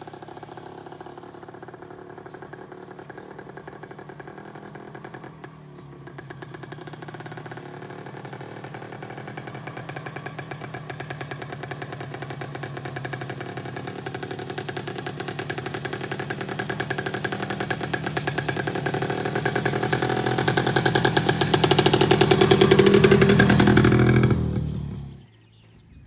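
A motor vehicle's engine running with a fast pulsing beat, growing steadily louder as it approaches along the road for over twenty seconds, then cutting off abruptly near the end.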